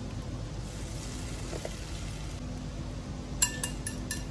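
Beaten egg mixture poured into a hot non-stick frying pan with a faint hiss, followed near the end by four or five sharp clinks of kitchenware against the pan or bowl, over a low steady hum.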